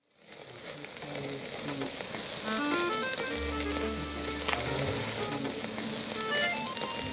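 Slices of wagyu beef sizzling on a wire grill over glowing charcoal, with scattered sharp pops; the sizzle fades in at the start.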